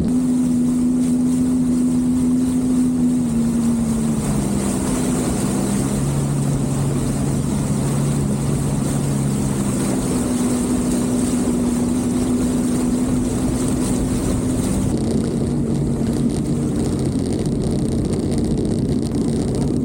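Sea-Doo personal watercraft engine running under way, with a steady rush of wind and water. The engine note drops about four seconds in, climbs back about ten seconds in, and dips slightly again about fifteen seconds in.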